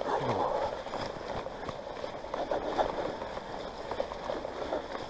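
Mountain bike being ridden along a wet, muddy trail: tyres running through mud and water, with many small rattles and knocks from the bike.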